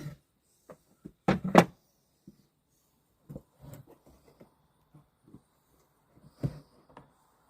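Scattered wooden knocks and clunks from boards and pieces being handled and set down, with two loud ones in quick succession about a second and a half in and a few more later.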